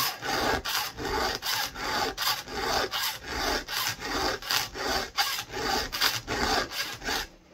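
A round file rasping by hand across the cutters of a chainsaw chain in quick, even strokes, roughly three a second, stopping just before the end: a chain being sharpened.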